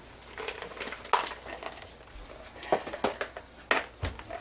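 A Bedlington terrier mother licking her newborn puppy clean: irregular wet smacks and clicks, some sharp, at uneven intervals.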